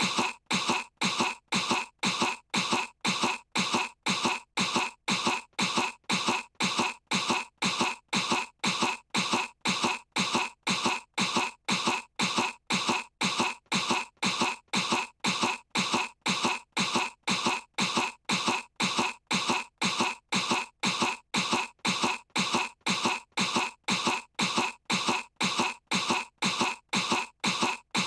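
A young girl's fake cough, one short cough repeated evenly about twice a second, over and over.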